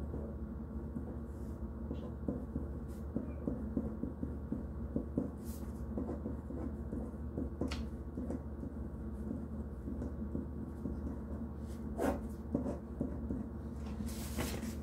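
Bell and Howell tactical pen writing on a paper envelope: light, irregular scratching and small taps of the pen tip, with a few sharper clicks, over a steady low hum.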